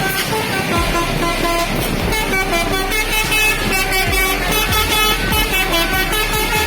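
Tour bus 'telolet' multi-tone air horn playing a quick melody of short notes that keep changing pitch.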